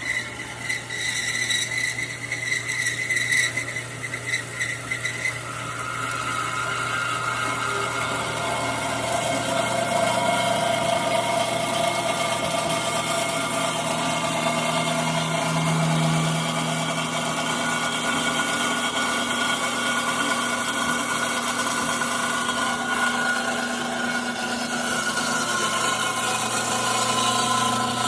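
A powered machine running: uneven and choppy for the first few seconds, then a steady drone whose pitch drifts slowly up and down.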